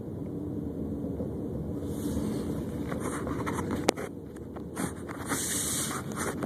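Car running down the road, heard from inside the cabin: a steady low rumble of engine and tyres, with patches of hiss and a single sharp click just before four seconds in.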